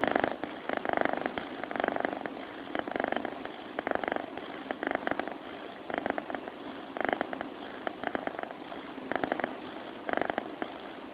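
A sleeping cat purring: a rasping purr that swells and fades with each breath, about once a second.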